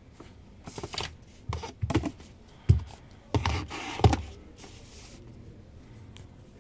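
Handling noise on a desk: a string of knocks and rustles for about four seconds as the phone and its packaging are moved about, the sharpest knock a little under three seconds in.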